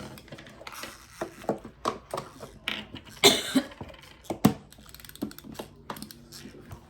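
Plastic toy pieces being handled: scattered light clicks and clatter, with a louder sharp knock about three seconds in and another a second later.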